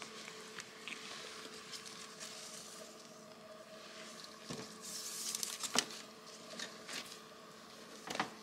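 Faint rustling with a few soft clicks and knocks as gloved hands handle a newborn on the warmer bedding, over a steady low hum.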